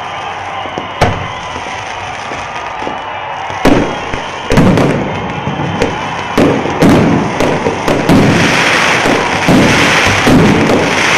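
Fireworks going off: one sharp bang about a second in, then from about four seconds in a rapid run of bangs and pops that turns into continuous crackling near the end.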